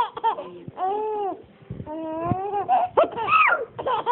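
Baby laughing and squealing in a few separate high-pitched outbursts, the loudest a long squeal falling in pitch about three seconds in.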